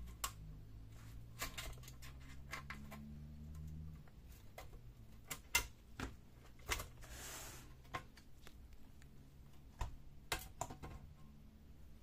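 Snap-in clips of a Dell Vostro 5471 laptop's bottom cover clicking loose one after another as the cover is pried off with a plastic opening pick. Sharp clicks and small knocks come irregularly, the loudest about five and a half seconds in, with a short scrape of the pick or cover edge around seven seconds.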